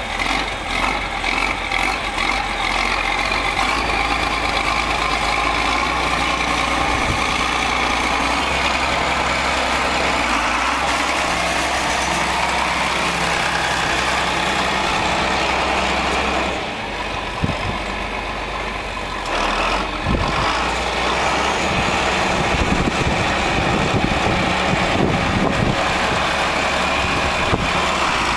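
John Deere 4630 tractor's turbocharged six-cylinder diesel engine running as the tractor drives past. The engine is steady except for a few seconds past the middle, where it drops quieter, with a few knocks.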